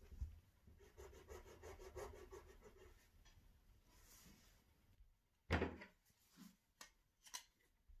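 Quiet craft-handling sounds: a couple of seconds of rapid scratchy rubbing on a small piece of aluminium foil, then a sharp knock a little past the middle and a few light clicks as the tools are handled.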